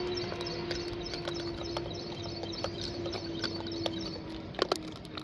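Gray langur crunching dry maize and chickpea kernels close up: irregular sharp cracks and clicks, two louder ones near the end. A steady hum runs underneath.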